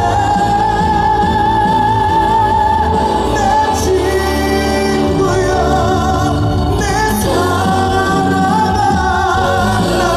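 Live trot song: a male singer belting long, high, wavering held notes over a full backing band.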